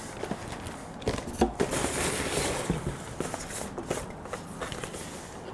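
Handling noise from an opened shipping carton: small cardboard boxes knocking and sliding against plastic-bagged cables and foam packing peanuts, with rustling and light irregular taps, busiest around the middle.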